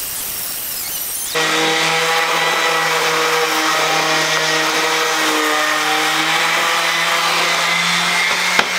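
Handheld electric power sander running steadily on a wooden board, a constant motor hum over the hiss of the sanding. It is quieter for the first second and a half, then louder and steady for the rest.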